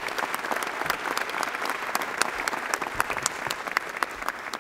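Assembly members applauding in the chamber, a dense patter of many hands clapping that dies away near the end.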